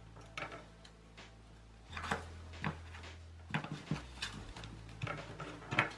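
Paper banknotes and envelopes being handled on a wooden table: scattered soft rustles and light taps.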